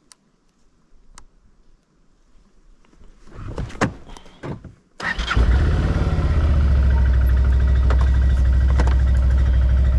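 Odes 650 ATV engine started about five seconds in, then idling steadily. A few faint clicks and handling sounds at the controls come before it.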